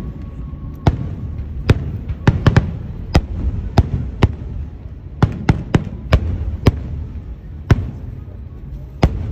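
Fireworks display: aerial shells bursting in a quick, irregular string of about fifteen sharp bangs over a low rumble.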